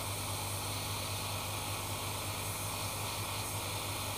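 Hot air rework gun blowing a steady hiss of hot air with a low hum underneath, heating a memory IC on a set-top box board to desolder it.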